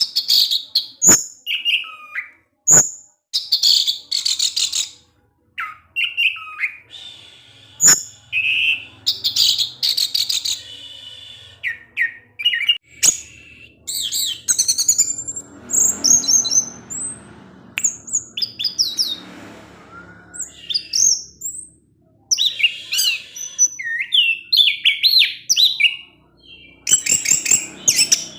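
Orange-headed thrush (anis merah) singing a long, varied song of rapid chips, trills and quick whistled slurs, broken by short pauses. A few sharp clicks stand out in the first eight seconds.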